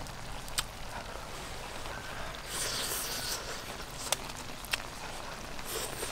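Mouth sounds of someone eating: a few sharp smacking clicks while chewing, and a short breathy hiss about halfway through, over a steady outdoor background hiss.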